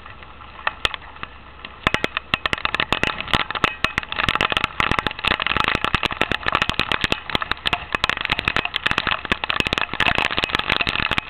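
Hail pelting down: a dense, irregular patter of sharp clicks that starts about two seconds in and grows heavier from about four seconds on.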